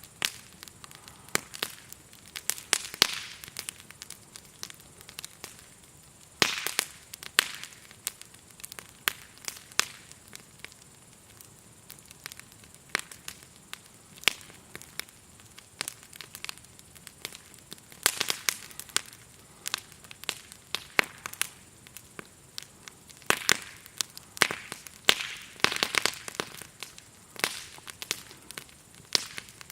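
Campfire of burning wood crackling, with irregular sharp pops and snaps, some in quick clusters, over a faint steady high chirring of grasshoppers.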